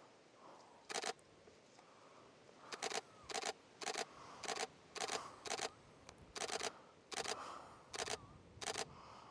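Canon 90D DSLR shutter firing about a dozen single frames in quick succession, each a sharp double click of mirror and shutter, spaced irregularly half a second to a second apart.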